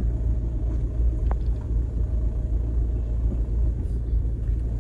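Steady low road and engine rumble heard inside the cabin of a Ford Transit Connect van on the move.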